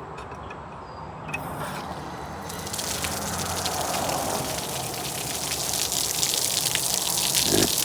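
Water gushing and splashing, coming in about a second and a half in and growing louder, with a short low thud near the end.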